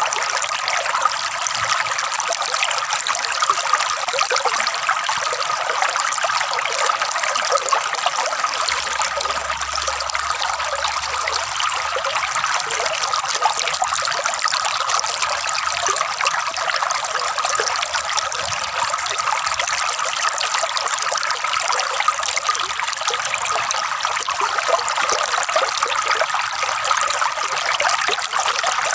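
Water flowing and gurgling in a steady, unbroken trickle.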